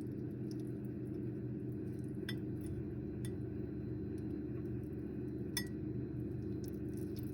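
Microwave oven running with a steady low hum, and a few light clinks, the loudest about five and a half seconds in.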